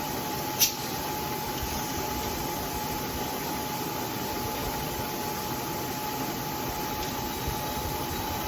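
Bridgeport vertical milling machine running with its spindle turning but not yet cutting: a steady whirring hum with a constant whine. There is one sharp click about half a second in.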